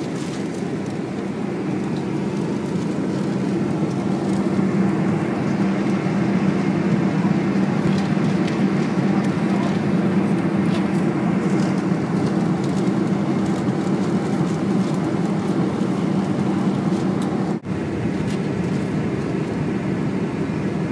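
Steady drone of a Boeing 747's jet engines heard from inside the passenger cabin while the airliner taxis, with a deep hum underneath. It grows a little louder over the first few seconds and drops out for an instant near the end.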